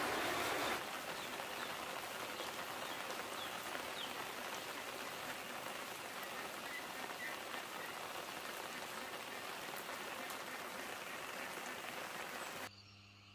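Steady rain falling, an even hiss dotted with faint drop ticks. Near the end it cuts off suddenly, leaving only a faint low hum.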